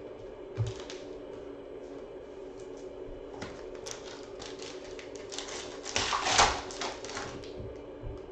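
Hands handling trading-card packs and cards: crinkling and rustling of the pack wrappers and cards sliding. The rustling is loudest about six to seven seconds in, over a faint steady hum.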